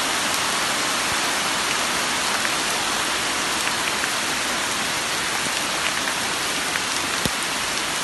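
Heavy rain falling steadily, a dense hiss with scattered drops ticking close by.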